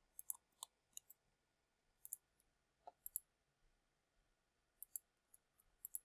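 Faint computer mouse clicks, about a dozen scattered irregularly, some in quick pairs, over near silence.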